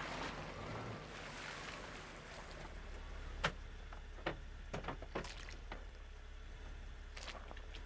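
A car rolling over wet, muddy ground and coming to a stop. Then a few sharp knocks and clicks as the car door is opened and a man climbs out, the first one the loudest, over a low steady hum.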